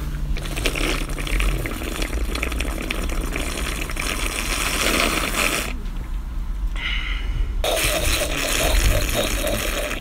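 A person drinking deliberately noisily: loud, continuous slurping that stops for about two seconds just past the middle, then starts again.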